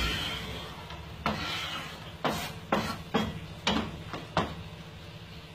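Kitchen knife scraping chopped tomato, cucumber and parsley across a plastic cutting board into a plate, with about six sharp knocks of knife and plate against the board, over a steady low hum.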